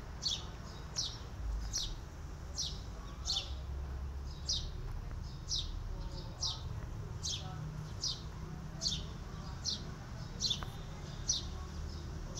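A small bird chirping over and over, a short, high, quickly falling note about every three-quarters of a second, over a low steady rumble.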